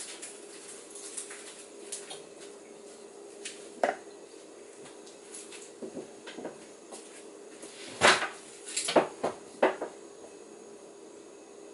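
Dishes and cookware being handled: scattered light clicks, one sharper knock about four seconds in, and a cluster of sharp clinks and knocks about eight to ten seconds in, over a steady hum.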